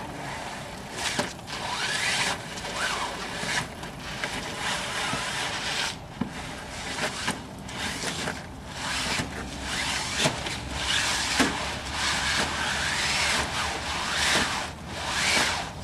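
Spinnaker sailcloth rustling and swishing in repeated strokes as the large sail is pulled out and stretched flat by hand.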